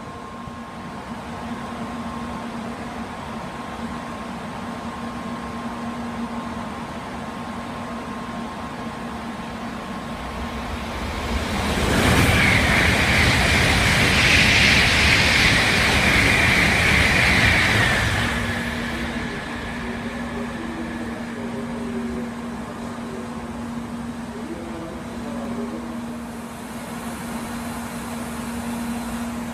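Shinkansen bullet train passing through the station at high speed. A rushing noise swells about ten seconds in, holds loud for about six seconds with a high hiss on top, then dies away.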